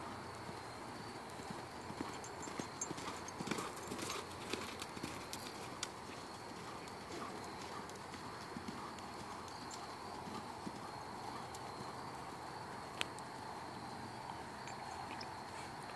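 Welsh pony's hoofbeats on sand arena footing at a canter, most distinct about two to six seconds in, over a steady high drone of insects.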